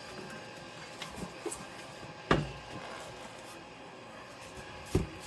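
Handling noise from a 3D printer being unpacked: a few light clicks, then two sharp knocks about 2 s in and near the end, over faint room noise.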